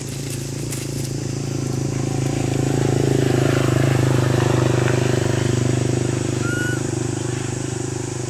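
A passing motor vehicle's engine, growing louder to a peak about halfway through and then slowly fading.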